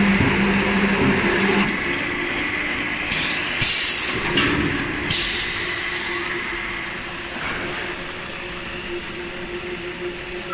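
Spindleless veneer peeling lathe running: a steady hum with knocks as its spiral rollers turn a thin log core. The sound then changes to quieter running factory machinery, with a few short, loud hissing bursts in the middle.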